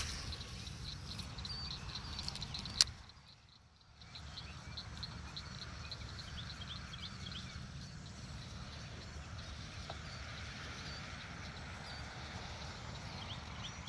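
Outdoor ambience: a steady low rumble with many short, high chirps from small animals. A sharp click comes a little under three seconds in, and then the sound drops out for about a second.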